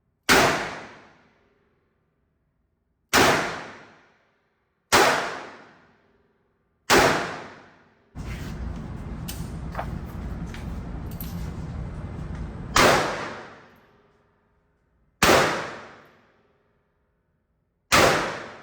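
AR-15 rifle fired one shot at a time, seven sharp reports a couple of seconds apart, each with a long echoing tail. Between the fourth and fifth shots there are several seconds of steady rumbling noise with a few light clicks.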